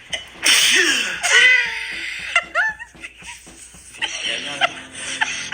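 A loud burst of noise about half a second in, then laughter over music.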